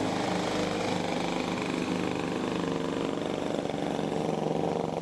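The small twin engines of a Cricri MC-15 light airplane running steadily at an even speed.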